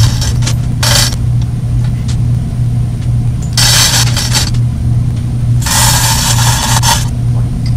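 A loud, steady low hum runs throughout. Over it come three short bursts of scraping and rustling, about a second in, around four seconds in and from about six to seven seconds in, as the nylon lifting straps on the knee mill are handled.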